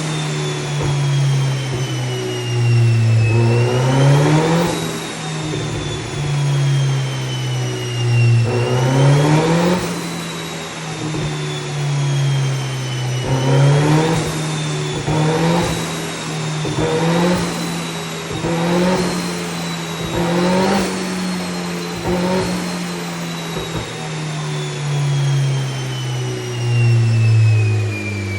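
A 20-valve turbocharged engine swapped into a Porsche Boxster, revving again and again: the pitch climbs quickly, then sinks away slowly before the next rise. A thin high whine rises and falls with the engine speed.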